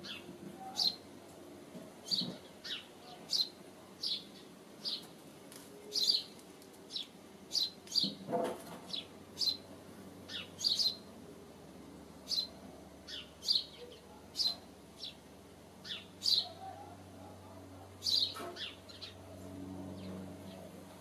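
House sparrows chirping: a long series of short, falling chirps, spaced irregularly at about one or two a second.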